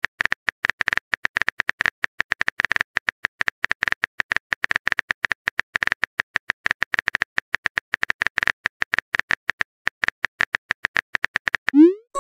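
Rapid keyboard tap clicks from a texting app as a message is typed, then a short rising whoosh near the end as the message is sent.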